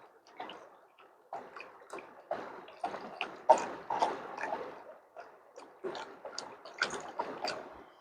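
Water splashing and sloshing irregularly, with small clicks and knocks of stones, from gravel being worked in shallow water while crevicing bedrock for gold.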